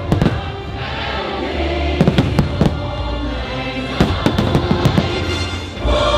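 Fireworks bursting in sharp bangs and crackles, in clusters about two and four seconds in, over loud show music.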